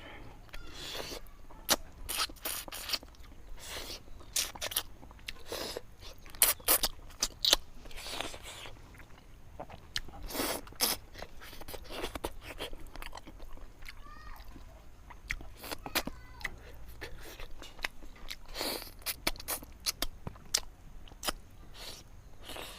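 Close-miked eating of fish curry: irregular wet chewing, smacking and crunching of mouthfuls, louder in a cluster of smacks partway through.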